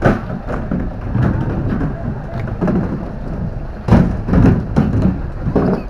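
Irregular heavy chopping thuds of a long knife hacking a big fish into thick pieces on a wooden block, several blows with loud knocks about four seconds in.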